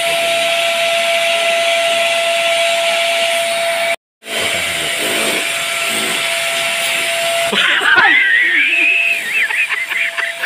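A steady hiss with a faint hum, broken once by a short dropout; about three-quarters of the way in, a woman shrieks and laughs in high, wavering cries.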